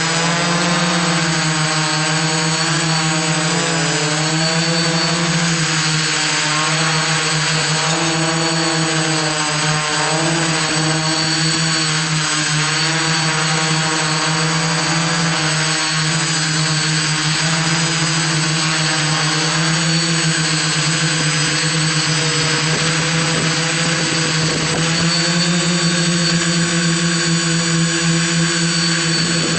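iDEAFLY IFLY-4S drone's motors and propellers running in flight: a loud, steady buzzing hum whose pitch wavers slightly up and down.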